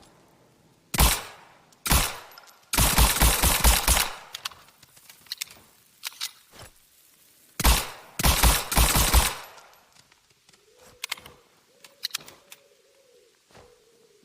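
Suppressed Walther P38 9mm pistol firing: two single shots about a second apart, then a rapid string of about seven shots, another single shot and a second rapid string of about six. Fainter clicks and a faint ringing follow near the end.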